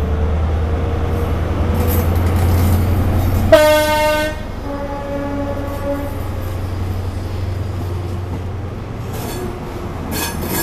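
A CrossCountry InterCity 125 (HST) departs. The Class 43 power car's MTU diesel engine hums low and grows louder as it pulls away. About three and a half seconds in, its horn sounds loud: a short higher note, then a lower note lasting about a second, followed by the coaches' wheels rolling past.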